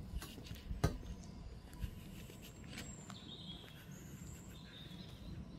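Quiet outdoor ambience: footsteps through grass, with a sharp click about a second in, and faint high bird calls in the middle.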